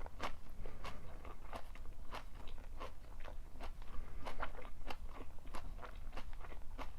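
A person chewing stir-fried napa cabbage and shredded pork, with a quick irregular run of crisp crunches, about three or four a second.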